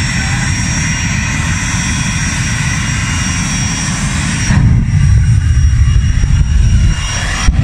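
Jet car's turbine engine running with a steady high whine over a rumble. About four and a half seconds in it turns louder and deeper, and the whine drops away.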